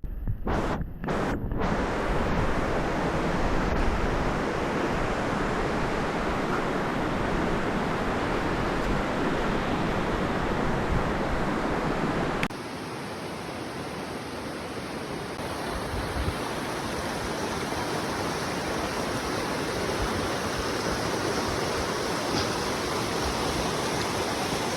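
Steady rushing of falling water from a waterfall. The sound cuts out briefly near the start, and about halfway a cut drops it to a slightly quieter level.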